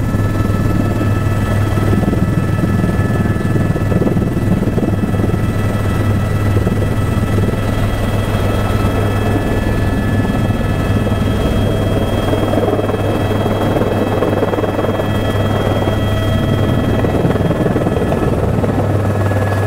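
Helicopter in flight heard from inside the cabin: a loud, steady low drone with several steady high whining tones over it.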